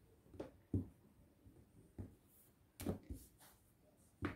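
Plastic rolling pin rolling out sugar paste on a cutting mat: a handful of faint, irregular knocks and taps as the pin is pressed, rolled and lifted.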